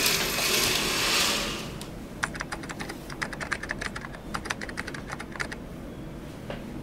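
A short hissing rush, then a rapid run of key clicks for about three seconds: a typing sound effect as a caption types itself out letter by letter.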